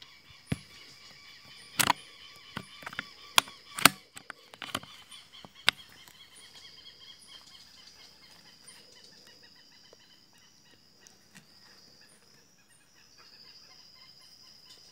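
A scatter of sharp clicks and knocks in the first six seconds, the loudest about two seconds in, over a steady high chorus of forest birds that carries on after them.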